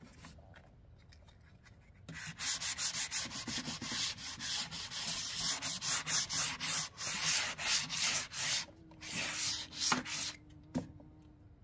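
Hand sanding block rubbed back and forth over a wooden louvered shoe-cabinet door, in quick rhythmic strokes about three a second, starting about two seconds in, as preparation for refinishing the door.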